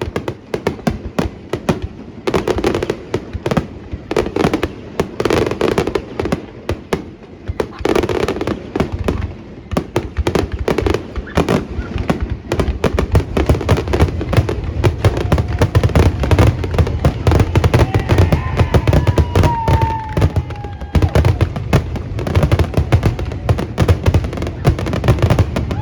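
Fireworks display: rapid, overlapping shell bursts that get denser and heavier about halfway through, with a falling whistle shortly before the end.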